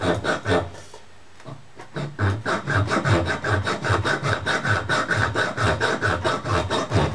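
Hand hacksaw cutting through the top of an aluminium bottle: rasping back-and-forth strokes, with a short break about a second in, then a steady run of about three strokes a second.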